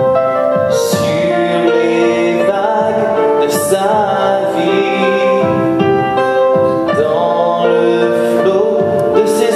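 A male singer sings a slow song with long held notes over instrumental accompaniment.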